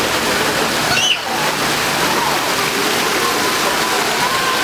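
Steady splashing hiss of a pool fountain's water jets pouring into the pool, with children's voices faint in the background and a brief high cry about a second in.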